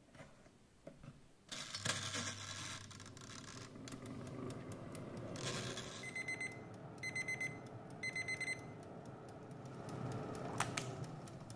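Mistral halogen convection oven being started: knob clicks, then from about two seconds in its fan runs with a steady hum and hiss. About six seconds in, three short trilling beeps come about a second apart.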